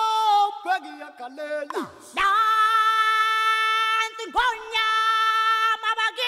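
Background music: unaccompanied singing with long held notes that briefly dip in pitch between them.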